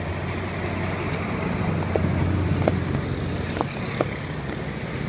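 Steady low engine hum of street traffic, with a few short clinks between about two and four seconds in.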